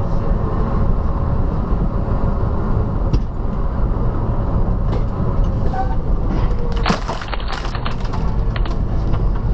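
Steady low engine and road rumble inside a truck cab, picked up by the dashboard camera. A cluster of sharp clicks and knocks comes about seven seconds in.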